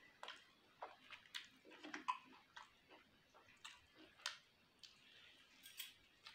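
Close-miked eating sounds of a person eating chicken curry by hand: irregular short wet smacks, clicks and chewing noises from the mouth and fingers.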